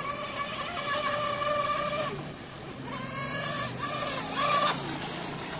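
RC mono hull boat's Tenshock brushless electric motor running at speed: a steady high whine that falls away for about a second around two seconds in, comes back, and swells briefly near the end.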